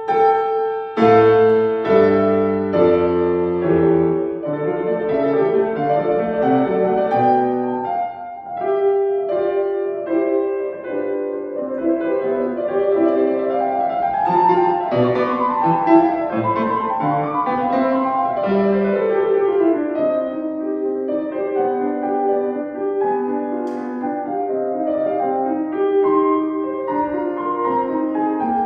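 Solo classical piano playing: a continuous passage of sustained notes and chords, with quick runs of notes sweeping up and back down near the middle.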